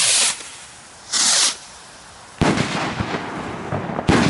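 Black Gemini firework rockets: two short rushing hisses as rockets go up, then a sharp bang about two and a half seconds in followed by crackling, and a second bang near the end.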